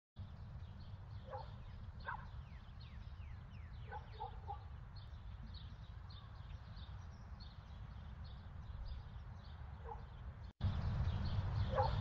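Outdoor ambience of many small birds chirping in short, quick, falling notes over a low steady rumble, with a few distant dog barks. The sound drops out briefly about ten and a half seconds in, then comes back louder.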